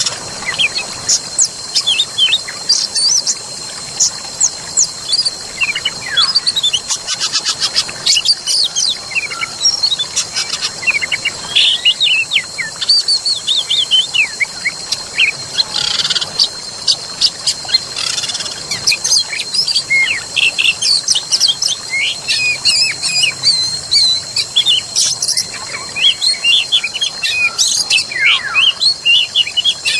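Many wild birds singing and chirping together in a forest soundscape: dense, overlapping short calls and whistles, over a steady high-pitched drone.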